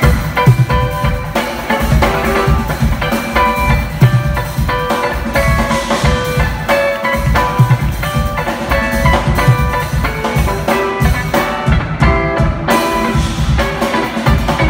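Live jazz-fusion band playing: electric guitar lines over a busy drum kit. The cymbal hiss drops out for about a second around two-thirds of the way through.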